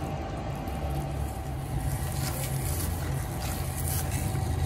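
A steady low hum with faint sizzling from raw pork belly pressed by hand onto a hot, nearly dry frying pan to brown its skin; the sizzle grows a little from about halfway through.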